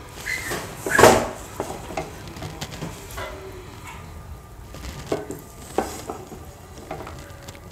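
Cooked rice pulao being spooned onto a ceramic serving plate: the serving spoon scrapes and taps as it lays the rice down, with one louder scrape about a second in and scattered light clicks after it.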